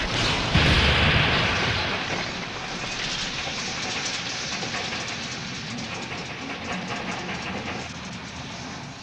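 Steam locomotive sound effect: a loud rush of rumbling and hissing steam about half a second in, which then thins and fades away steadily.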